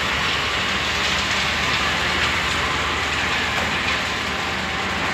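Mobile crane's engine running steadily while it holds a suspended conveyor section, under an even hiss of steady industrial noise.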